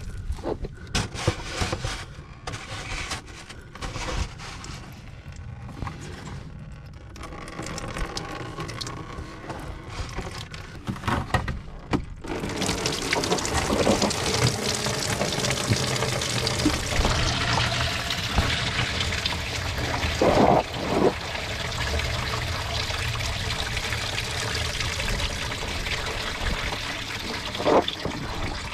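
Scattered clicks and knocks of hands working at a BMW E46's transmission cooler fittings, then, about twelve seconds in, a steady rush of engine coolant pouring out of the opened cooler line. A few short knocks sound over the pouring.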